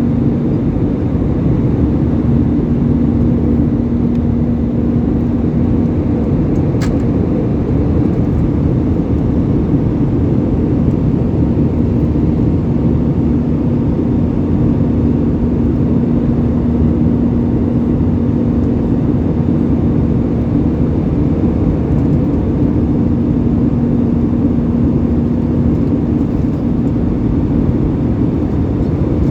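Cabin noise inside an Airbus A320 at cruise: a steady drone of engines and rushing air with a low, even hum. There is one small click about seven seconds in.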